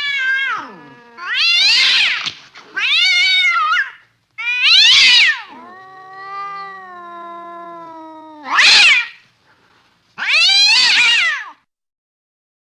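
An angry cat yowling: six loud, wavering caterwauls of about a second each, with a longer, quieter, lower-pitched moan drawn out between the fourth and fifth.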